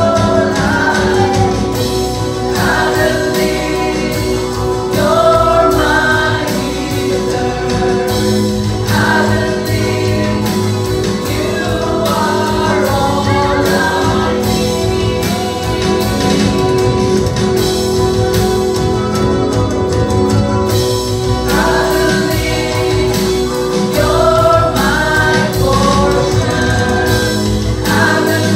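Live gospel worship song: a band plays with a steady beat while a lead singer and a group of voices sing.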